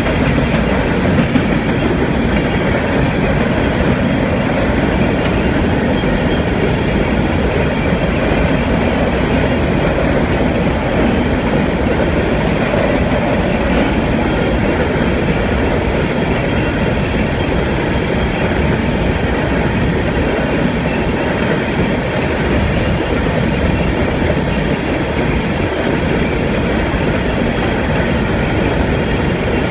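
Empty coal hopper cars of a long freight train rolling past at a steady speed: continuous steel-wheel-on-rail noise that holds an even level throughout.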